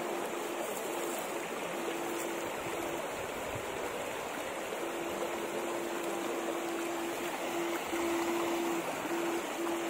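Shallow river water rushing and trickling over stones, with splashing as a net and wading feet move through it. A steady hum cuts in and out over the water sound.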